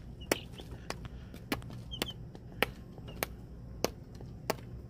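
Baby chicks in a brooder pecking, a sharp tap about every half to three-quarters of a second, with a few faint high peeps between the taps.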